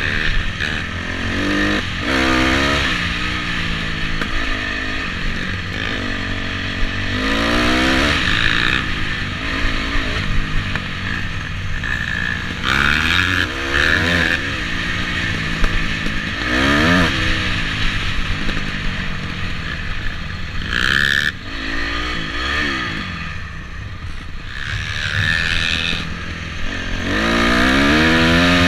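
Dirt bike engine under way, rising in pitch again and again as the throttle is opened and falling back between, as the rider accelerates and slows along a rough track.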